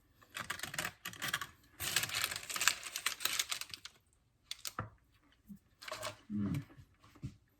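Crackling, rustling handling noise for the first few seconds, then a few sharp clicks and short mouth sounds, as a sourdough brownie is picked up and bitten into.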